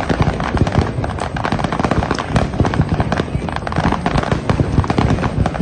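Fireworks going off in a dense, continuous barrage: many crackling reports a second overlapping one another, with no break.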